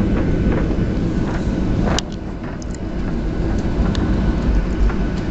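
Cabin noise of a Boeing 737-800 rolling along the runway after touchdown: a steady low rumble with regular knocks about twice a second as the wheels run over the runway surface. A sharp click comes about two seconds in, and after it the rumble is quieter.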